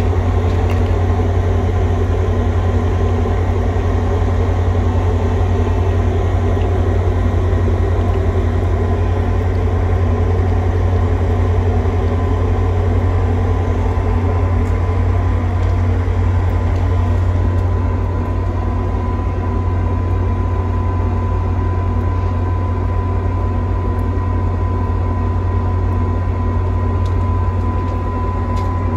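Diesel locomotive of a FrontRunner commuter train idling while stopped at the platform: a loud, steady low drone with a few steady tones above it.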